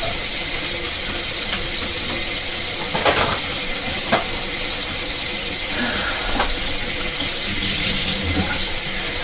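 Kitchen tap running steadily, an even hiss of water, with a couple of light knocks about three and four seconds in.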